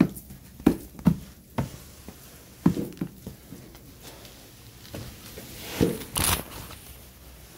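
A few sharp knocks and thumps in the first three seconds, then a louder brushing rush about six seconds in, as of a door and the phone being handled at an entry doorway.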